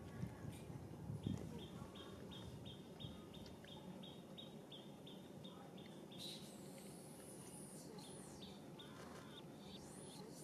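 Quiet outdoor ambience with a bird chirping a steady run of short high notes, about four a second; from about six seconds in, a higher, wavering buzz takes over.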